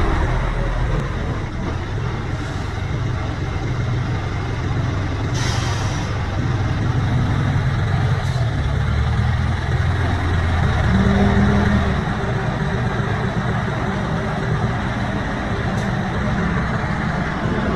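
Diesel engine of heavy earthmoving equipment running steadily, its note changing around the middle, with a short hiss about five seconds in.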